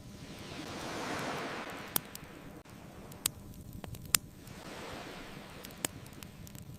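Ocean waves washing in twice, each swelling and fading away, with the sharp pops of a crackling wood fire about four times.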